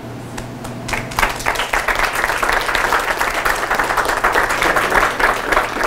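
An audience applauding: many hands clapping, starting about a second in and carrying on steadily.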